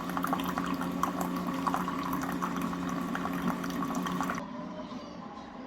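Water running, with a steady low hum under it; about four seconds in it drops away abruptly to a quieter background.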